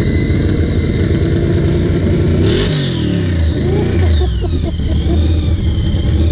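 Vehicle engine running hard with a steady high whine. About two and a half seconds in, the revs drop and the whine falls in pitch, then wavers.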